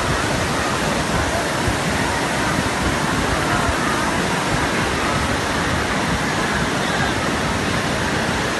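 Waterfall pouring: a loud, steady rush of falling water with no change in level.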